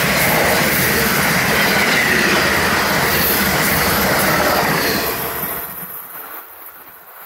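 Amtrak passenger train's stainless-steel cars passing at speed, a loud steady rush of wheels on rail that fades off as the last car goes by about five seconds in.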